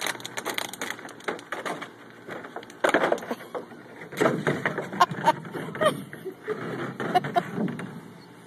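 Hard plastic kiddie pool knocking and scraping on concrete as a puppy underneath pushes it along, irregular clatters with a few sharper hits and some short squeaks about halfway through.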